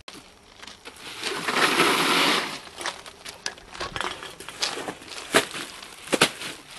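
Handling noise: a crunching rustle lasting about a second and a half, then scattered clicks and knocks as the caught fish and coolers are handled.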